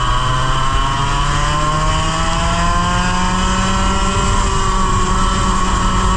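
100cc kart engine under acceleration: its pitch climbs slowly for about four seconds, then holds steady at high revs near the end, over a low rumble.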